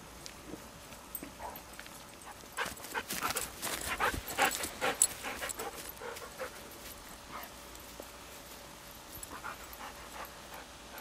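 Dog barking: a quick run of short barks between about two and five seconds in, with a few fainter sounds around it.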